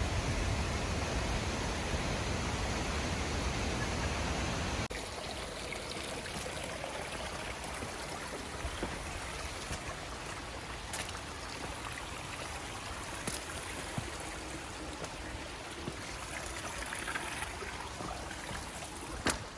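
Steady rush of a cascading mountain creek, dropping to a quieter level about five seconds in, with a few faint ticks later on.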